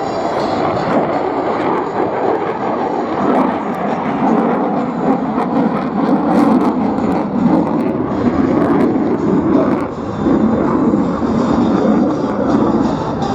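F-35A Lightning II fighter jet flying on its demonstration, the engine heard as a loud, steady rushing noise that grows heavier in the low-middle range over the second half.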